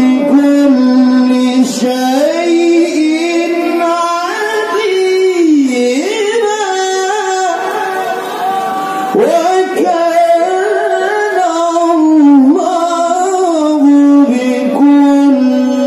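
Male qari reciting the Qur'an in the melodic tilawah style, amplified through a handheld microphone: long, drawn-out notes that slide and waver in pitch with ornamented turns.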